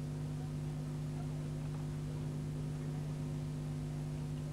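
Steady low electrical mains hum with faint hiss, from an old television broadcast recording; no ball is struck.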